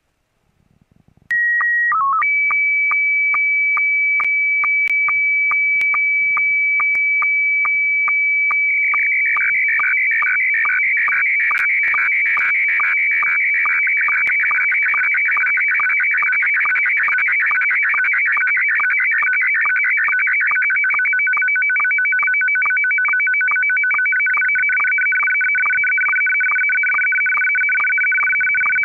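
Slow-scan television (SSTV) image signal in Scottie S1 mode, sent to call CQ. After about a second of quiet comes a short header of tones, then a steady high tone broken by a sync click two or three times a second. From about nine seconds in it turns into a warbling, shifting mix of tones as the picture's coloured text lines are sent.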